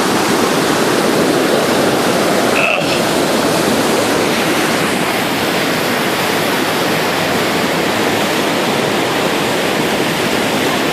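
Whitewater rapids on the New River rushing steadily: a loud, even roar of churning water.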